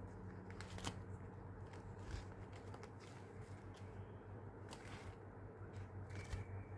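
Faint rustling and light clicks of paper and plastic sleeves as a sticker storage folder is handled and leafed through, over a steady low hum.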